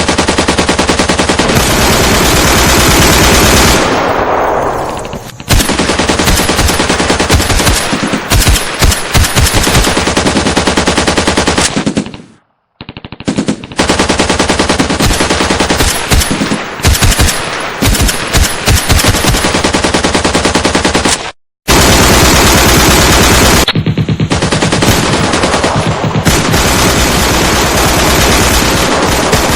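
Machine-gun firefight sound effect: sustained automatic gunfire in long, rapid bursts, dropping out briefly about twelve seconds in and again about twenty-one seconds in.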